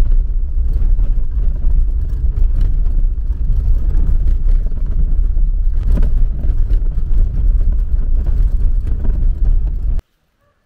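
Car driving along, a loud steady low rumble that cuts off suddenly near the end.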